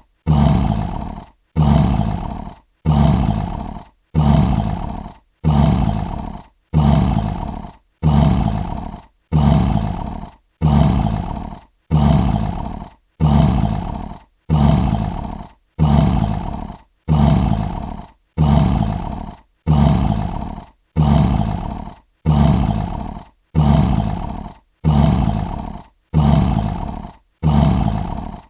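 Lion roar sound effect: one short roar looped over and over, about one every second and a half, each starting abruptly and fading out before a brief silent gap.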